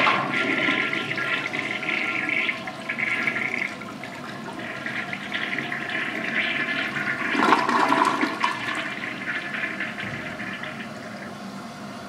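1962 Kohler Wellworth toilet flushing: water rushing and swirling down through the bowl, with a louder surge about seven and a half seconds in, then easing to a quieter, steady run of water as the tank refills through its Mansfield tilt-style fill valve.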